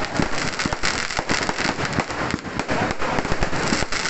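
Firecrackers going off in a rapid, continuous volley of sharp pops and cracks, many a second.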